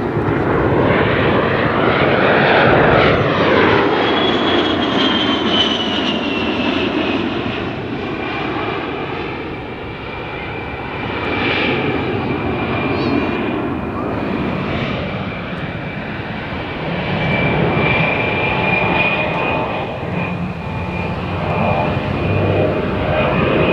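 Twin General Electric TF34 turbofan engines of an A-10C Thunderbolt II in flight. A jet roar swells to its loudest a few seconds in, with a high whistling whine that drops in pitch and then holds steady.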